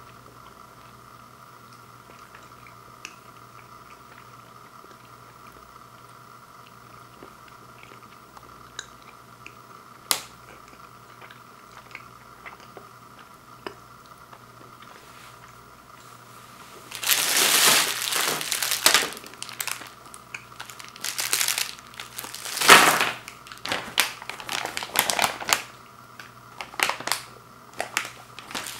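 Plastic candy wrappers and a plastic bag crinkling as fun-size candy bars are handled and gathered up, in a run of loud irregular bursts over the last dozen seconds. Before that only a low steady hum and one sharp click.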